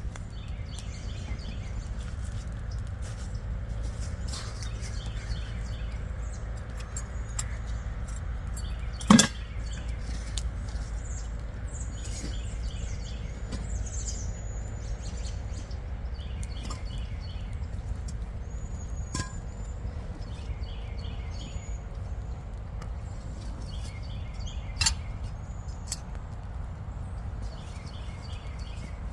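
Songbirds calling over and over, short repeated phrases and high whistled notes, over a steady low rumble. A sharp knock about nine seconds in, and a smaller one around twenty-five seconds.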